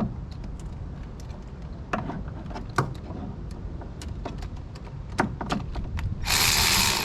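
Scattered clicks and knocks from the parts of a cold air intake being handled and fitted by hand. About six seconds in, a loud, steady rushing noise starts.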